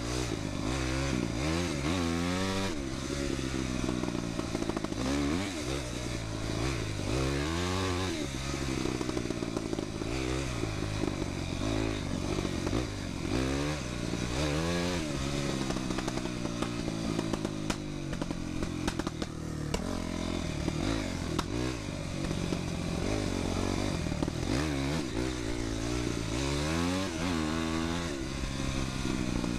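Honda CRF250X dirt bike's single-cylinder four-stroke engine under way, its pitch rising and falling again and again as the throttle is opened and shut.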